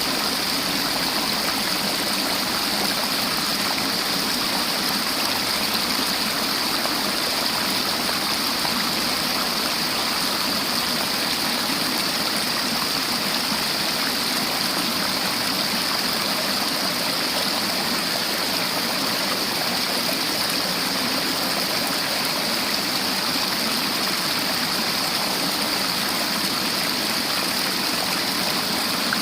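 A river flowing over its bed, a steady, unbroken rush of moving water.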